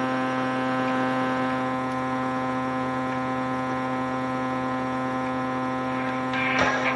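Steady electrical hum with many overtones coming through the cassette playback chain, starting abruptly and holding level. Music begins near the end.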